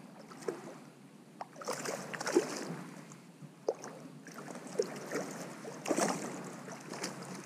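A hooked fish thrashing at the surface beside a kayak as it is led into a landing net: irregular splashes and sloshing water, with the biggest splashes about two seconds in and again near six seconds.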